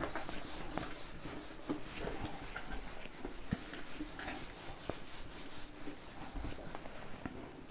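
Whiteboard eraser rubbing across a whiteboard in faint repeated wiping strokes, with small ticks scattered among them.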